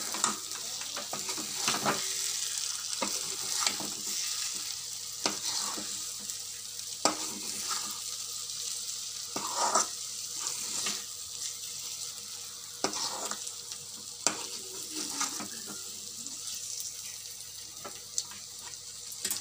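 Thick masala sizzling in a metal kadai while a metal ladle stirs boiled quail eggs through it, scraping and tapping against the pan at irregular intervals.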